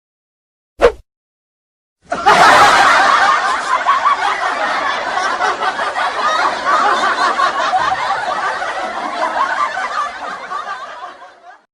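Crowd laughter sound effect: many people laughing together, starting suddenly about two seconds in and slowly fading away near the end. A brief short sound comes just before it, under a second in.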